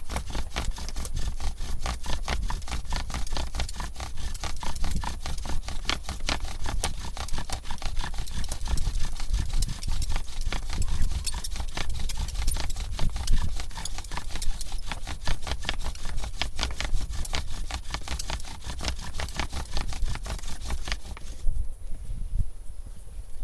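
Hazel bow drill running: the bow stroking back and forth and the spindle grinding in the hearth board, a fast rhythmic scraping that stops shortly before the end.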